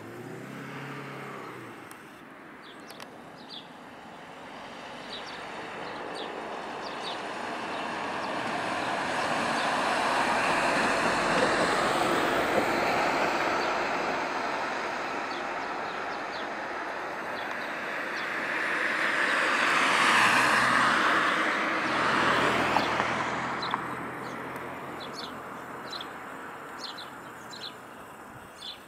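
Road traffic: cars driving past on a street, tyre and engine noise swelling and fading, loudest about a third of the way in and again about two-thirds in. Birds chirp near the start and near the end.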